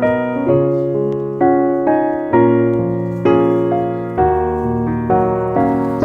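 Background piano music: slow sustained chords, a new chord struck about once a second and fading between strikes.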